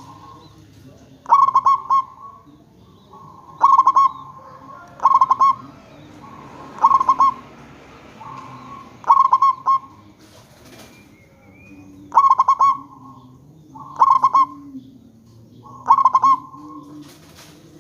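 Zebra dove (perkutut) cooing: a run of about eight loud, stuttering coo phrases, one every two seconds or so, with softer coos between them.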